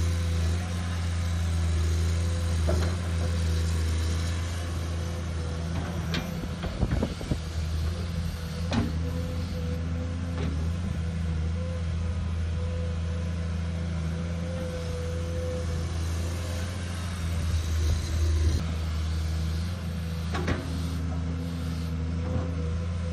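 Komatsu PC210 excavator's diesel engine running steadily with a low hum, with several sharp knocks now and then.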